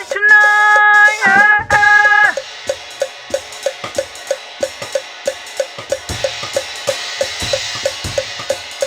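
Jazz band music: a held chord with a short bend at its end stops a little over two seconds in, leaving the drum kit playing alone in a break, with steady hi-hat ticks over kick and snare hits and a cymbal wash near the end.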